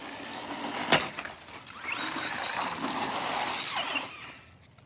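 Battery-powered RC car running fast across pavement, its electric motor whining up and down over the gritty noise of the tyres. There is a sharp knock about a second in, and the noise cuts off shortly before the end.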